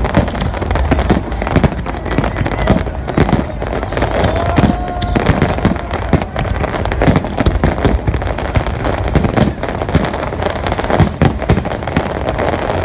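Fireworks display: aerial shells and fountains firing in a dense, continuous barrage of overlapping bangs and crackles, with a steady low rumble underneath.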